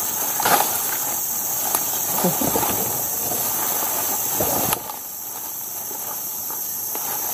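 Insects keep up a steady high-pitched buzz, which drops off abruptly a little past halfway, over the light rustle and crackle of footsteps pushing through leafy undergrowth.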